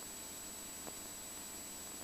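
Faint steady electronic hiss with a thin high-pitched whine from the aircraft's intercom audio feed, the cabin engine noise shut out; a faint tick about a second in.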